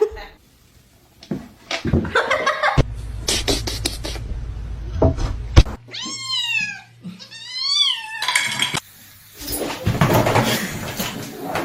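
A domestic cat meowing twice, each meow rising and then falling in pitch, among other short clips with knocks and noise.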